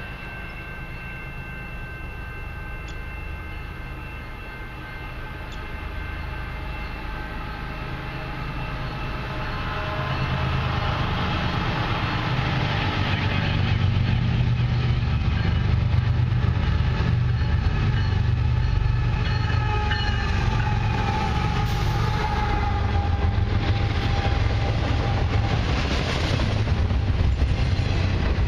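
Canadian Pacific freight train led by two diesel locomotives approaching and passing, with the horn sounding as it nears. The engines' deep rumble grows louder over the first half and stays loud as the locomotives go by, followed by intermodal cars rolling past with wheels clicking over the rail joints.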